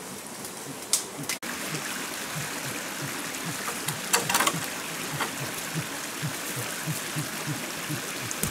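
Steady rush of a forest stream, with a low, regular pulse about three times a second underneath. About four seconds in there is a brief crackle of dry leaves and twigs underfoot.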